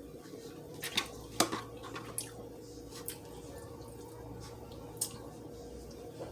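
Eating sounds at a meal of fried fish and coleslaw: a few short, sharp wet clicks and smacks, two of them louder a little after the first second, over a faint steady hum.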